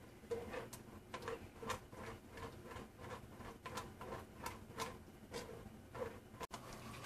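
Red silicone spatula pressing and scraping thick tomato gravy through a fine mesh strainer, in soft repeated strokes about two or three a second. The gravy is being strained to hold back tomato skins and seeds.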